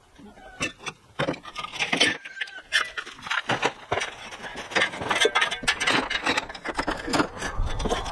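Metal junk and wire pulled off a metal shelf and dropped into a plastic trash can: an irregular run of sharp knocks, clinks and jangles that thickens into a continuous clatter, with a duller scraping near the end.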